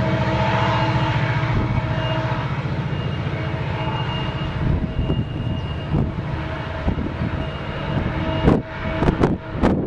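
Union Pacific diesel locomotives leading an autorack train, their engines running with a steady low drone as they come round the curve. A few sharp thumps near the end.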